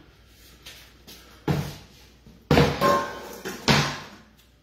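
A few loud knocks and clatters, roughly a second apart, from a chopping board and the recording phone being handled on a kitchen bench.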